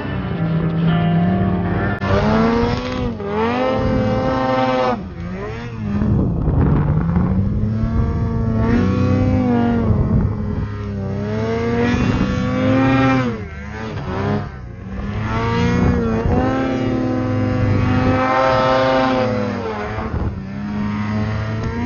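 Ski-Doo Summit X snowmobile's two-stroke engine with a tunnel-dump exhaust, revving up and down over and over as the throttle is worked through deep powder snow.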